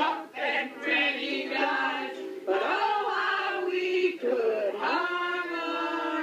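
A small group singing together, unaccompanied, holding long drawn-out notes; a rising swoop about five seconds in leads into the longest held note.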